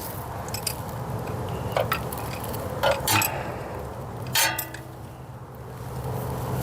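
Wrench and bolts clinking against metal: several separate sharp clinks, the one about four seconds in ringing briefly.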